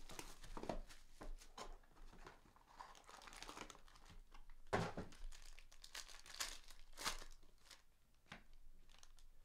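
Foil wrappers of 2017-18 Chronicles trading card packs being torn open and crinkled, with the cards rustling as they are handled; irregular faint crackles, one louder about five seconds in.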